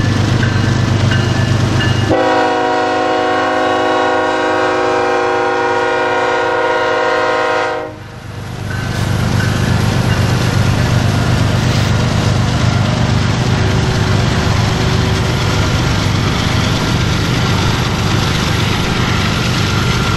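Diesel freight locomotive sounding its horn in one long, steady, multi-tone blast of about six seconds, which cuts in and off abruptly. It is framed by the low rumble of the locomotive's engine and a passing train.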